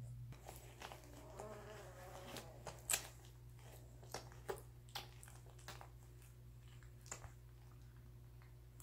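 Doberman puppies nursing: faint wet suckling clicks and smacks at irregular intervals, the loudest about three seconds in, with a brief soft puppy vocalization about a second and a half in.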